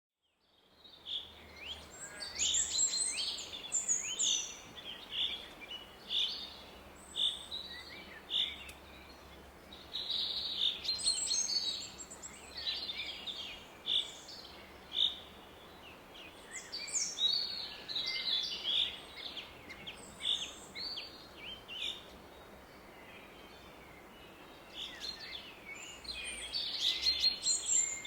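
Woodland birds singing and calling, many short chirping phrases coming in busy clusters, over the steady roar of a distant river. The sound fades in at the start.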